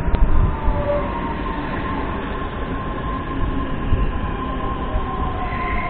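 Ivolga electric multiple unit pulling into the platform and rolling past close by, slowing down. Wheels rumble on the rails under the whine of its electric drive, which falls steadily in pitch as the train brakes, and a higher whine comes in near the end.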